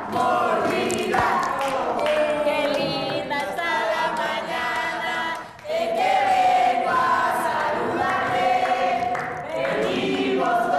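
Several voices singing together, with notes held and sliding, dipping briefly about halfway through.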